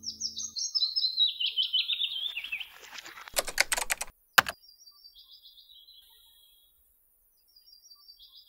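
A songbird sings a quick descending run of chirps. It is followed by a rapid burst of about half a dozen computer keyboard keystrokes and then a single click, like typing a search word and pressing search. The bird's descending song comes twice more, fainter.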